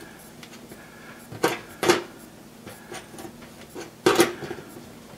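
Adjustable wrench clinking against the metal mounting tab and screw of an oven bake element as the screw is tightened: a few sharp metal clicks, two about a second and a half and two seconds in, then a louder cluster about four seconds in.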